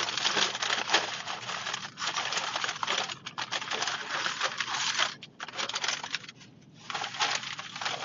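Paper takeout bag crinkling and rustling as hands dig into it, in bursts with brief pauses about five seconds in and again at about six and a half seconds.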